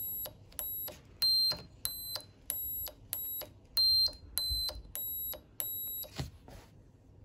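Small electronic buzzer in a push-button tri-tone breadboard circuit, sounding a run of about ten short high-pitched beeps, one for each press of a button; each of the three buttons gives it a different note. The beeps stop about six seconds in, followed by a soft knock.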